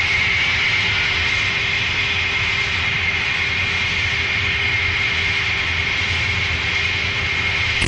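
A steady, machine-like rushing noise with a constant high whine, which cuts off suddenly at the end.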